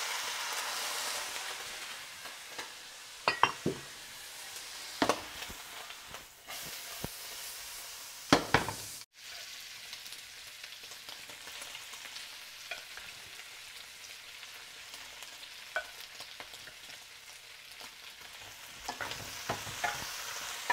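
Food sizzling in a hot nonstick frying pan: a splash of Chinese cooking wine onto fried aromatics flares up loudest at the start, with a few sharp knocks in the next seconds. After a break, diced food fries with a steadier, quieter sizzle, and a spatula stirs and scrapes near the end.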